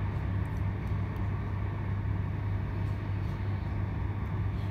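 Steady running noise inside a c2c electric passenger train carriage at speed: a constant low hum over an even rumble.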